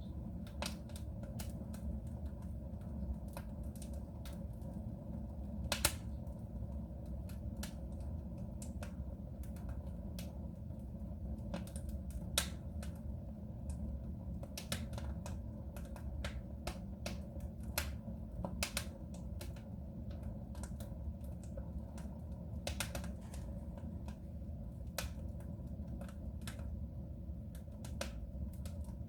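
Wood fire crackling in a soapstone stove: irregular sharp pops and snaps over a steady low rumble of the burning fire, with two louder pops about six and twelve seconds in.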